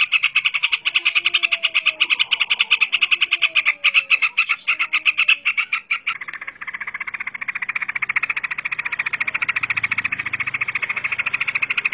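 A fast, even pulsing animal chorus that keeps going without a break and changes abruptly about six seconds in. Faint, low, downward-sliding whistles sound in the first half.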